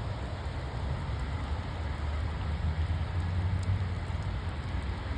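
Swollen creek in flood: a steady rushing noise of fast water with a strong low rumble underneath.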